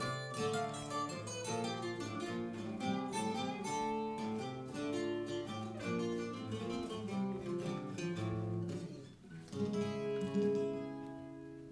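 Acoustic guitar played: a quick run of picked notes, then a final chord about nine and a half seconds in that is left to ring and slowly fade.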